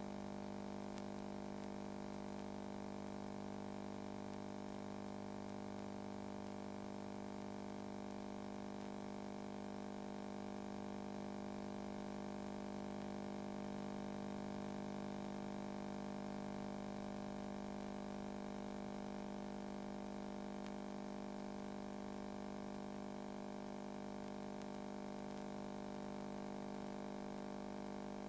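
A steady low hum made of many held tones, strongest in the low register, unchanging throughout.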